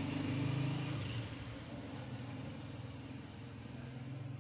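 A low, steady engine hum, louder for about the first second and then fading, over a faint background hiss.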